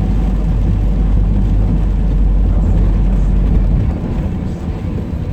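Car cabin noise while driving: a steady low rumble of road and engine that eases a little about four seconds in.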